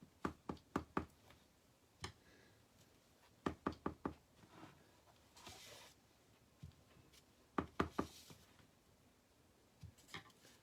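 Rubber stamp on a block knocked down onto the craft table in quick clusters of four or five sharp taps, the inking and pressing of the stamp, with single taps in between and a brief soft rub.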